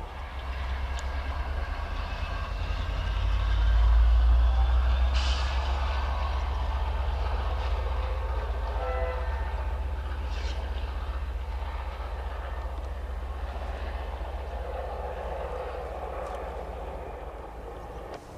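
A Class 67 diesel-electric locomotive passing at speed, its EMD two-stroke V12 engine and wheels making a deep rumble. The rumble swells to its loudest a few seconds in and then slowly fades as the train goes by. There is a brief horn note about nine seconds in.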